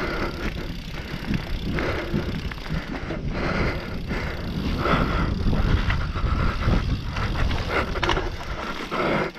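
Mountain bike riding fast down a bumpy dirt and dry-leaf forest trail: tyre noise and the bike rattling and clattering over roots and bumps, with wind rumbling on the microphone.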